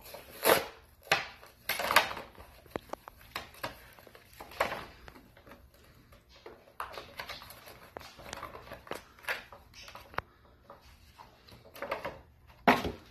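Plastic blister pack and cardboard backing of a toy monster truck crinkling and tearing as it is opened by hand, in irregular crackles and sharp clicks.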